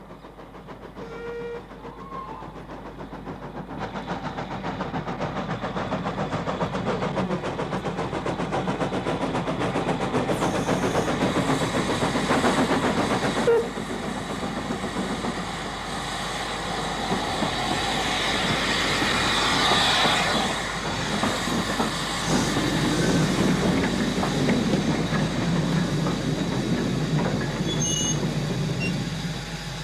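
Steam train running along the rails, puffing and with wheels clattering in a rapid rhythm, growing louder over the first half and then staying loud.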